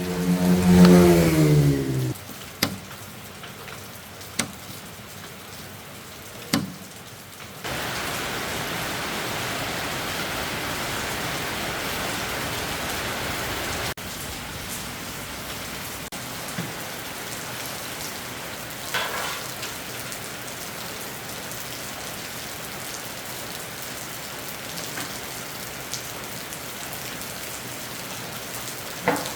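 Heavy rain falling steadily, an even hiss whose level jumps up about eight seconds in and drops back about fourteen seconds in. At the start a hum drops in pitch and stops about two seconds in, and a few light knocks sound over the rain.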